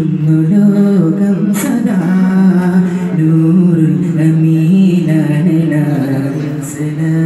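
A man singing solo into a handheld microphone, holding long, drawn-out notes that move step by step up and down in pitch.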